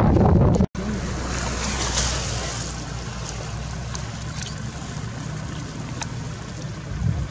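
Wind buffeting the microphone, cut off abruptly just under a second in, followed by a softer, steady wind hiss with a few faint ticks.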